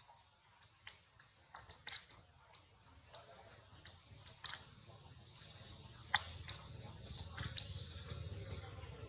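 Scattered sharp clicks and ticks, a dozen or so at uneven intervals, over a faint high hiss that grows from about halfway, with a low rumble rising near the end.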